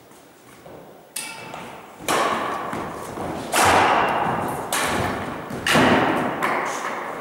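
Badminton rally: about five sharp racket hits on the shuttlecock, roughly a second apart, each ringing on in the echo of a large gym hall.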